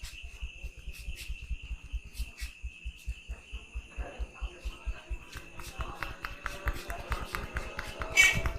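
Fast, rhythmic percussive massage strokes of the hands on the body, about eight soft thuds a second, growing sharper and more slapping in the second half, with one loud sharp smack near the end.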